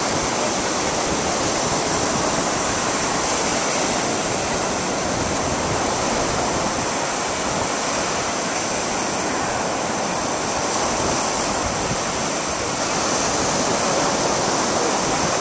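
Ocean surf washing onto a sandy beach, a steady, unbroken rush of waves.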